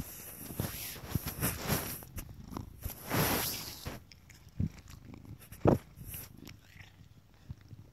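A cat purring close to the microphone, with rustling for the first few seconds and then a few sharp knocks.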